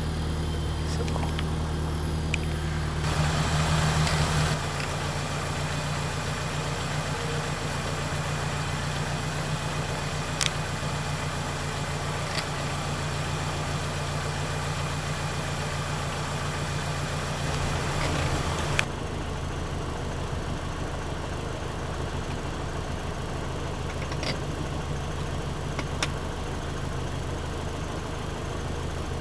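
Toyota Celica's four-cylinder engine idling steadily, with a brief louder stretch a few seconds in and a few faint clicks.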